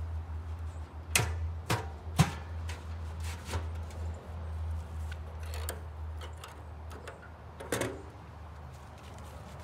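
Sharp metallic clanks and clicks of the steel smudge pot's cap and port being handled: a quick cluster of knocks about a second in, a few more scattered after, and one more near the end. Underneath is a low steady rumble of wind on the microphone.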